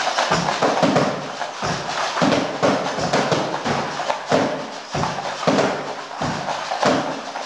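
Homemade drumkit of cardboard boxes being beaten in a steady run of dull thuds, about two to three strokes a second.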